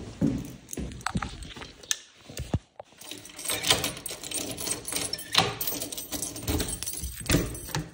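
Keys jangling and clicking against a door lock as the front door is unlocked, with scattered knocks and rattles.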